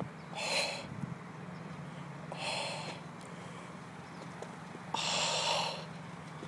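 A car's engine running with a low, steady hum as it creeps slowly alongside, broken by three short hissing bursts roughly two seconds apart, the last one the loudest and longest.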